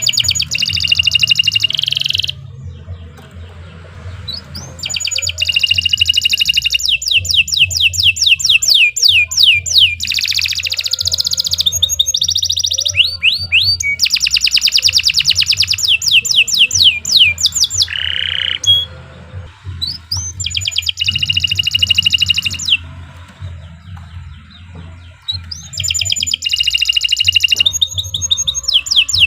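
Domestic canary singing a long, loud song: phrases of fast rolling trills and rapidly repeated chirps, each lasting one to four seconds, separated by short pauses.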